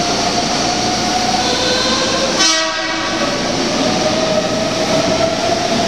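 A Meitetsu electric train approaches through the tunnel into an underground station: a steady rumble with a constant hum-like tone. About two and a half seconds in, the train gives a short horn blast.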